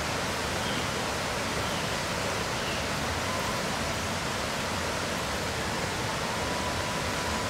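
Steady rushing water, an even unbroken hiss like a nearby stream or cascade, with no change in level.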